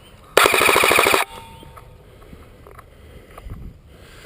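Ares Tavor 21 airsoft electric gun firing one full-auto burst of just under a second, a rapid rattle of about twenty shots a second.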